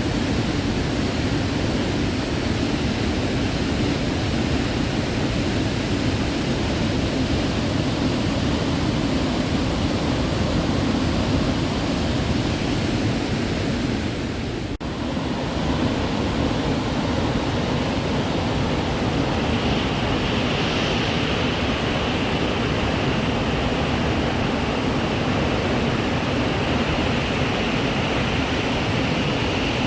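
Waterfall's water rushing in a steady, even hiss, with a brief dip about halfway through where the sound cuts.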